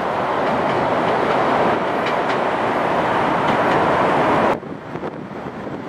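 Diesel multiple unit running past, a steady rumble of wheels on rail with a few faint clacks. The sound cuts off abruptly about four and a half seconds in, leaving wind noise on the microphone.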